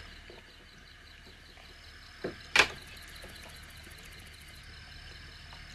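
Quiet room tone broken by two short clinks of tableware on the dinner table about two seconds in, the second sharper and louder.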